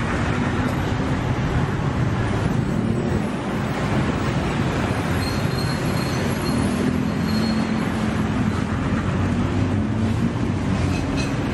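Busy street-market ambience dominated by steady traffic noise, with engine hum rising in the middle.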